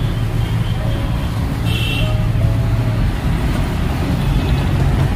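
Busy road traffic passing close by: a steady low rumble of car and bus engines and tyres, with a few short high tones over it.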